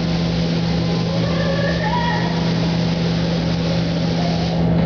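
Spray booth ventilation fans running with a steady hum and a hiss of moving air; the higher hiss thins near the end.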